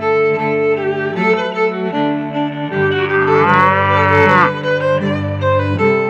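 A cow moos once about three seconds in, a long call that rises and then falls in pitch. It sounds over background music of bowed strings.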